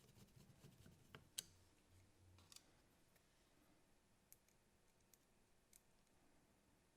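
Near silence with a few faint, scattered clicks from small parts of the Philips DCC recorder being handled during reassembly.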